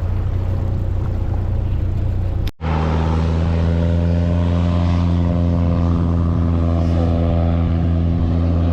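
An engine running at a steady speed, a low even hum; it drops out briefly about two and a half seconds in and comes back steady and stronger.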